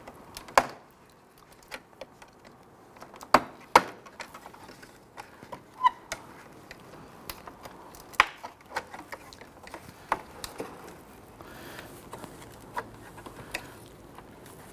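Plastic retaining tabs and clips on a Toyota RAV4's lower grille clicking and snapping as they are pried loose by hand. The clicks and taps are irregular, with the loudest a little over three seconds in and again about eight seconds in.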